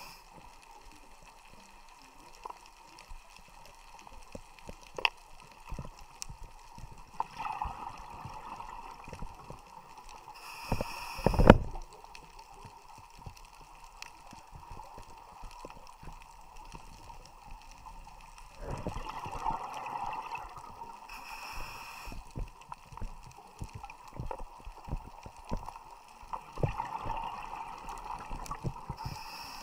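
Scuba diver's regulator breathing heard underwater: three slow, bubbling exhalations with short hisses between them, scattered small clicks throughout. One loud thump about a third of the way in.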